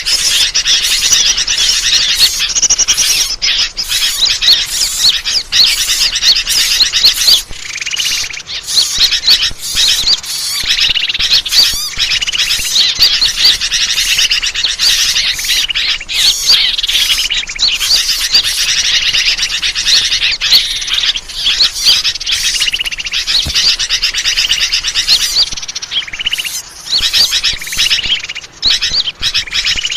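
Bird-lure recording of small birds chirping and trilling rapidly and continuously in a dense, overlapping chorus, the kind of calls played to draw wild birds in for trapping.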